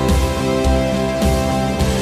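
Background music with a steady beat, a bass hit about every half second under held notes.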